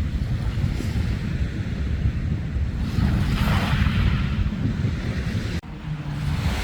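Sea waves washing onto the beach, with wind buffeting the microphone in a heavy low rumble. The sound drops out abruptly for a moment about five and a half seconds in.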